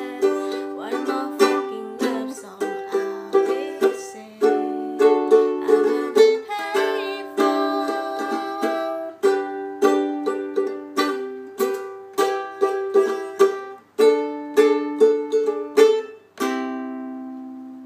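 Ukulele strummed in a steady rhythm of chords, ending on a final strummed chord about a second and a half before the end that rings and fades.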